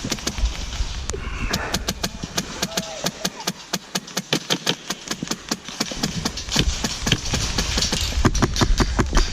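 Airsoft guns firing in a rapid, steady string of sharp cracks, about six to seven shots a second.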